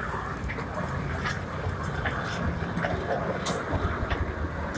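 Small electric kiddie-ride train, driven by a 0.5 hp DC motor, running on its circular steel track: a steady low rumble with scattered clicks and clacks.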